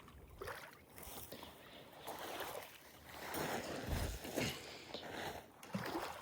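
Shallow water splashing and sloshing in irregular surges as rocks are lifted and moved by hand, busiest around the middle.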